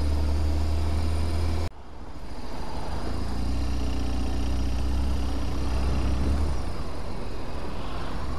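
Motorcycle engine running steadily under way, with road and wind noise. The sound cuts out sharply just under two seconds in, then fades back up as the ride goes on.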